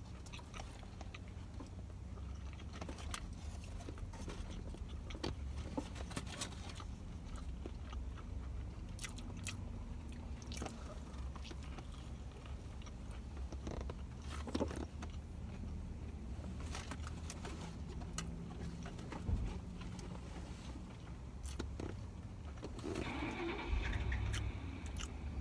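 People chewing and biting into croissant sandwiches, with scattered small rustles and clicks, over a steady low hum inside a car's cabin.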